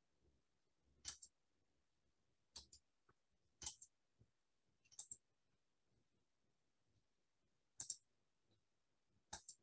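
Faint computer mouse clicks: about half a dozen sharp, sparse clicks at irregular intervals, a couple of them in quick pairs like double-clicks.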